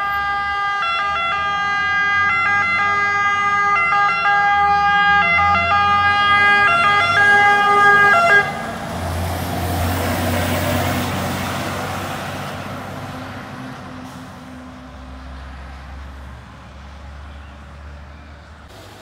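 Fire engine's two-tone siren alternating between two pitches, cutting off suddenly a little under halfway through. The truck's engine and tyres then pass close by and fade away into the distance.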